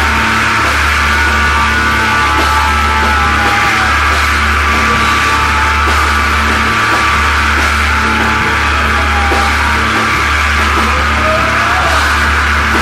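Loud heavy psychedelic rock. A deep, steady bass runs under a dense wall of sound, with notes sliding up and down in pitch.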